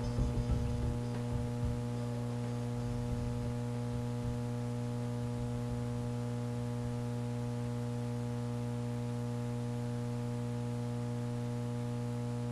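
Steady electrical mains hum with a buzzy row of overtones. The tail of background music dies away in the first second or two.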